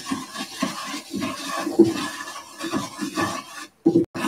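Wooden spatula scraping and stirring a flour-and-bacon-fat roux around a vintage Birmingham Stove and Range cast iron skillet: a rough, uneven scraping in repeated strokes, with a brief pause near the end.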